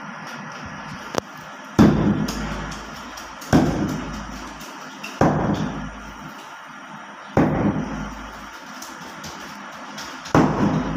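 A heavy cleaver chopping into a large joint of raw meat on a wooden stump block: five hard chops roughly every two seconds, each a dull thud that fades over about a second, after one light tap about a second in.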